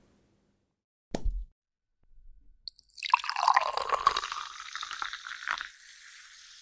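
A brief low thump about a second in, then a liquid splashing sound effect from about three seconds in, fading to a soft hiss near the end.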